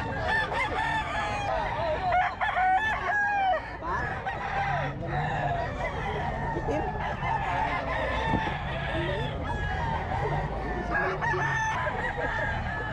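Several gamecocks crowing and clucking, their calls overlapping with no pause.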